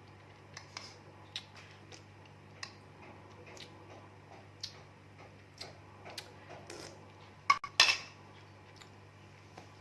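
A glass being handled and drunk from: scattered light clicks and knocks, with a louder clatter of two or three knocks near the end.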